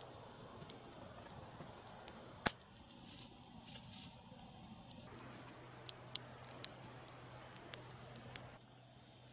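A few sharp clicks and light taps, one loud click about two and a half seconds in and a quick run of them near the end, over a faint steady hum that starts about halfway through.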